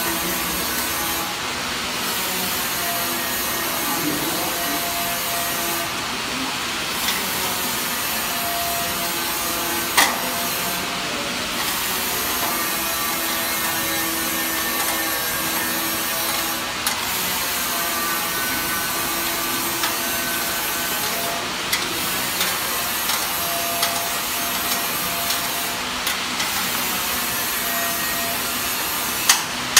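Steady machine hum and hiss of a factory workshop, with a few sharp metal clicks, one about ten seconds in and one near the end.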